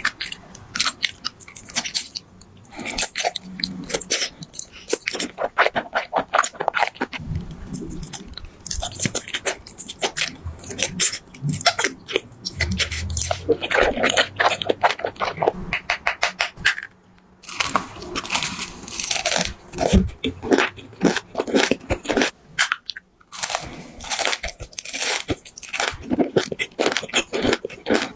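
Close-miked ASMR eating: crisp crunching bites and chewing of crunchy food, in quick runs of crackles with a couple of short pauses.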